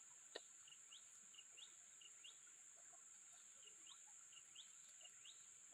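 Near silence, with a string of faint, short rising bird chirps repeated irregularly and a single click about half a second in, over a steady high-pitched hiss.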